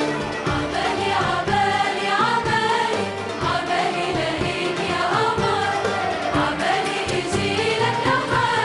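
Large choir singing an Arabic song, accompanied by a live orchestra with strings.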